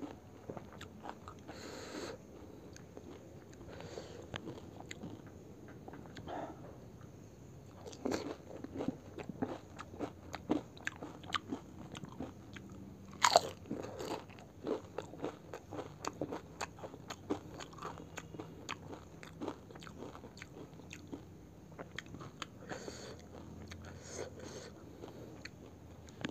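Eating pani puri: crisp fried puri shells crunching and cracking between the teeth, with wet chewing in between. One sharp crunch about halfway through is the loudest.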